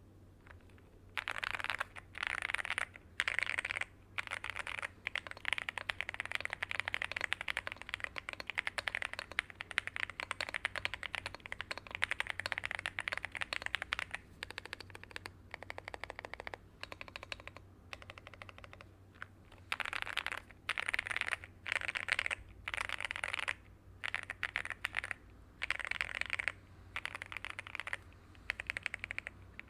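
Typing on a Monsgeek M1 aluminium mechanical keyboard with lubed and filmed Strawberry Jelly v4 switches, Bento PBT keycaps, Poron foam and tape mod, a build meant to sound thocky and creamy. Fast runs of keystrokes start about a second in and come in bursts with brief pauses.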